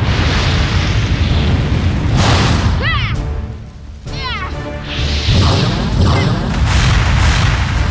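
Cartoon action sound effects over dramatic music: a deep rumble with heavy booms and swooshes, and a few quick falling-pitch zaps a little past the middle.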